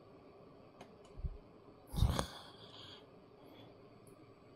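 Quiet room tone with a soft bump about a second in, then a short breathy sound like a sigh about two seconds in.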